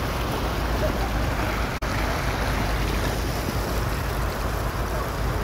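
Muddy flash-flood water rushing across a road: a steady, loud rushing with a deep rumble, wind buffeting the microphone. The sound cuts out for an instant about two seconds in.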